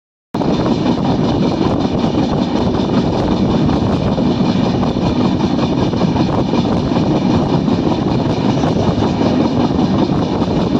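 Moving passenger train heard from an open coach doorway: wheels running steadily on the rails in a loud, continuous rumble. The audio drops out for a moment right at the start.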